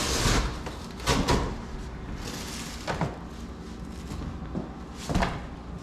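A few scattered knocks and clunks, about a second in, around three seconds and near the end, over a low background hiss.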